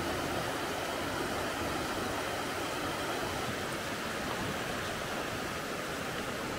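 Fast alpine river rushing steadily over rocks and small cascades.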